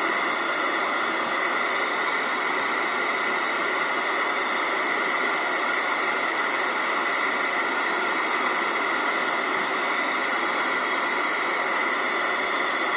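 Steady hiss of static from the speaker of an Alba CB H2 40-channel FM handheld CB radio as it is stepped through the channels with no stations heard.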